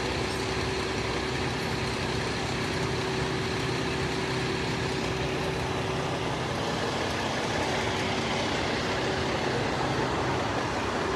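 A heavy vehicle engine, most likely a fire truck's, idling steadily with a constant hum.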